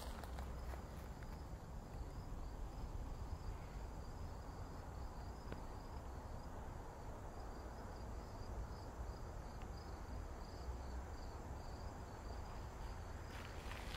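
Crickets chirping in a steady, even rhythm of high pulses, with a continuous high insect trill alongside and a low steady rumble underneath.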